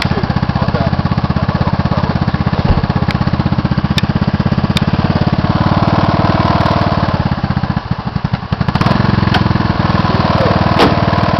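Off-road buggy's engine running close by with a fast, even firing beat, dipping briefly about eight seconds in before picking up again.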